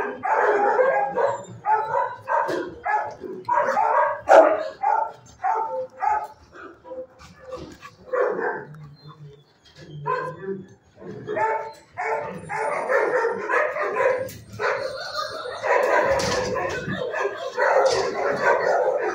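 Dogs in shelter kennels barking over and over, at times several barks a second. The barking thins out about halfway through, then picks up again.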